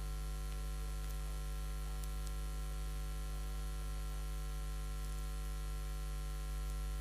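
Steady electrical mains hum with a ladder of higher overtones, unchanging throughout; nothing else is heard.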